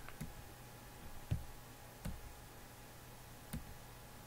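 Four faint, sharp clicks spread a second or so apart, each with a soft low thump, over a steady low hum.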